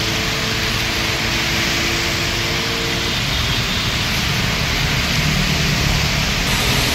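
Rain falling on a wet road with traffic passing, making a steady hiss of rain and tyre spray. A low steady hum underneath stops about three seconds in.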